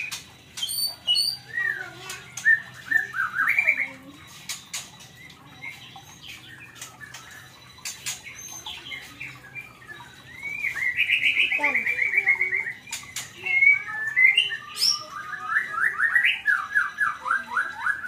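White-rumped shama calling: fast runs of short chirping notes, with a quieter stretch in the middle and the busiest runs in the second half.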